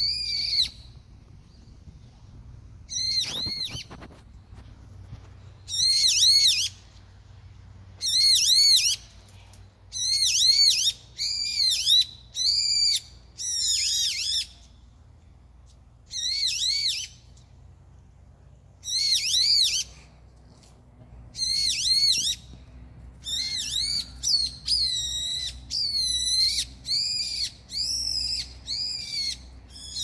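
A songbird singing loud, short phrases of repeated high, arching whistled notes. The phrases come every second or two, with a few longer pauses between them.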